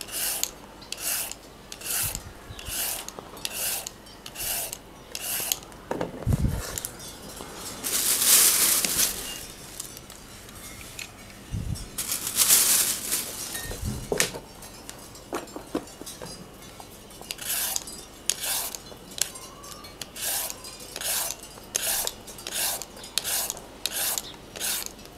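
Vegetable peeler scraping down raw carrots in short, evenly spaced strokes, about three every two seconds. The strokes stop for a while in the middle, where two longer, louder hissing noises come instead.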